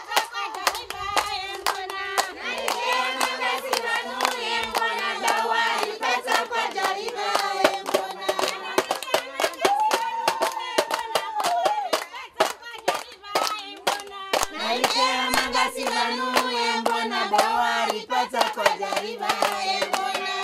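A group of women singing together to steady rhythmic hand clapping. The voices drop back briefly about two-thirds of the way through while the clapping carries on.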